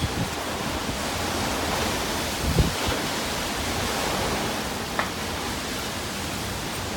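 Typhoon wind and heavy rain making a steady rushing noise, with a low thump about two and a half seconds in.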